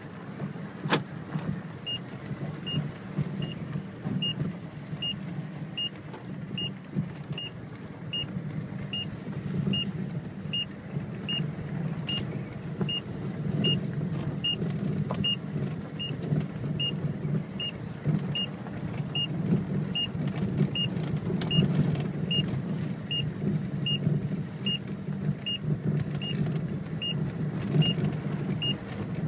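A car's engine running steadily as it drives slowly along a lane, with a faint high tick repeating about every three quarters of a second.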